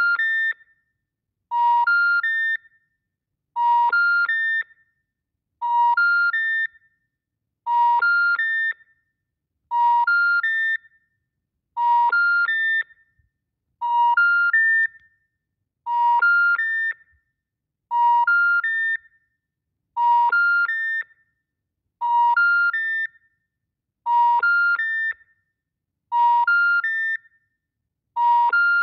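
BeMobile mobile network's special information tone: three rising tones of 950, 1400 and 1800 Hz, each about a third of a second long, followed by a second of silence and repeating about every two seconds, heard over a phone line. It is the intercept signal that the call cannot be completed.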